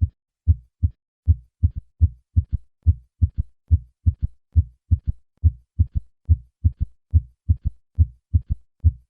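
Heart sounds heard at the cardiac apex: first and second sounds, each followed closely by a softer, low-pitched third heart sound in early diastole, about 70 times a minute. This gives a triple, galloping rhythm, a ventricular gallop. The third sound is a sign of heart failure in patients over 40, or of a volume overload state such as mitral regurgitation.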